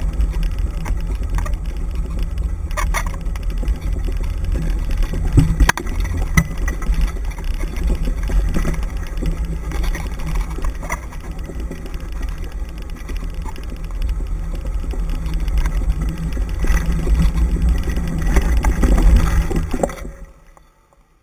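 Rumble and rattle of a dog-pulled dryland mushing rig rolling fast over a dirt forest trail, with wind buffeting the handlebar camera and scattered clicks and knocks from the wheels and frame. The noise cuts off abruptly near the end.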